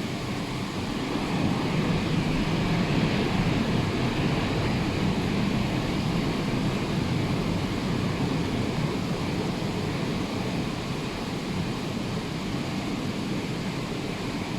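Rough sea surf breaking on the shore, a steady wash of waves that swells about a second and a half in and then slowly eases, with some wind buffeting the microphone.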